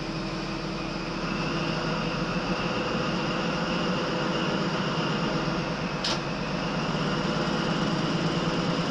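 Steady running noise inside the cab of a Class 43 HST diesel power car under way: a drone with a high whine over it, getting slightly louder, and a single short click about six seconds in.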